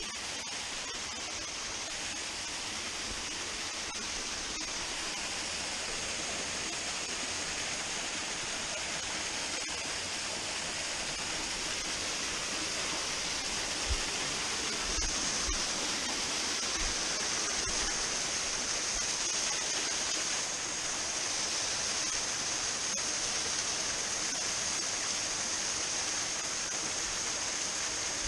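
A small waterfall pouring steadily over rocks into a stream pool, with a few brief low bumps on the microphone about halfway through.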